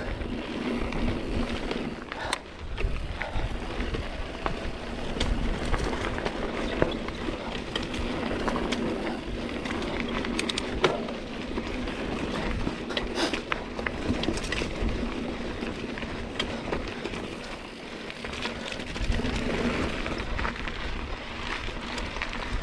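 Mountain bike ridden along a dirt trail: steady tyre and drivetrain noise with scattered clicks and knocks as the bike rattles over the ground.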